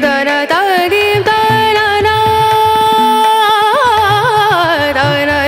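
Outro music: a voice singing an ornamented, South Asian–style melody with wavering notes and one long held note in the middle, over a low repeating beat.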